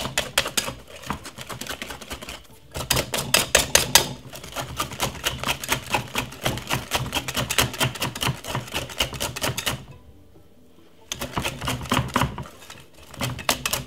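Wire hand whisk beating sponge cake batter in a glass mixing bowl: rapid clicking of the wires against the glass, stopping briefly about two and a half seconds in and for about a second near the end.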